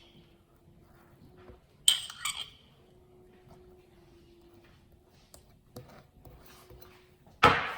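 Cutlery clinking against a dish while chutney is spread thinly on bread: a couple of sharp clinks about two seconds in, light scraping ticks, and a louder clatter near the end, over a faint steady hum.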